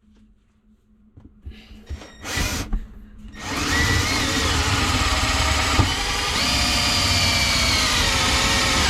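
Power drill boring a pilot hole through the van's metal floor. A short burst comes about two seconds in, then steady drilling runs for the last five seconds, its pitch shifting slightly as the bit works.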